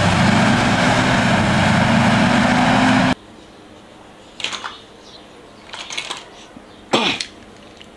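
Loud truck-engine sound with a slowly rising hum, cutting off abruptly about three seconds in. A few light plastic clicks and knocks follow.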